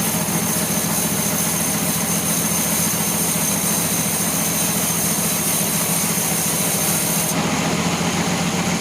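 Sawmill saw running steadily through a teak log, a low motor drone under a bright cutting hiss; the hiss drops away about seven seconds in.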